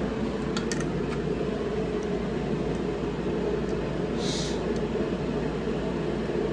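Steady low mechanical hum of running machinery in the shop, with a few light clicks about a second in and a short hiss a little past four seconds.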